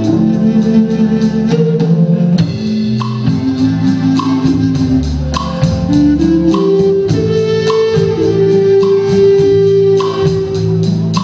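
Live band music: a Native American flute playing a melody of long held notes over keyboard, electric guitar, drum kit and congas keeping a steady beat.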